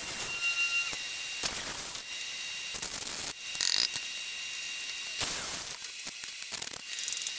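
An angle grinder grinding metal, its whine stopping about a second in, followed by scattered knocks and rattles as tools are handled and set down on the steel bench.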